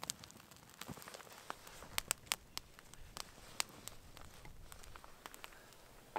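Small campfire of twigs and split kindling crackling, with irregular sharp pops and snaps over a faint hiss, a quick cluster of the loudest pops about two seconds in.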